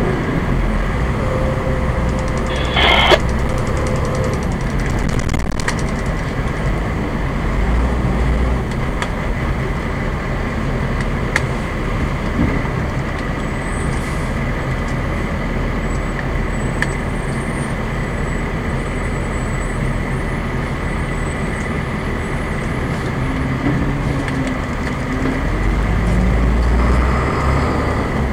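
Fire engine's diesel engine running, heard from inside the cab, a steady low rumble. A short, sharp burst of noise about three seconds in.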